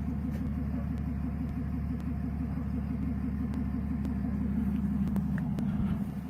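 BMW E46 engine idling with its exhaust removed: a steady, evenly pulsing low rumble that drops a little in level near the end.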